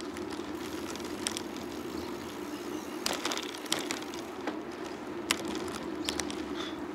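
Bicycle in motion: a steady rolling hum from the tyres and bike, with scattered sharp clicks and rattles, a brief cluster of them midway.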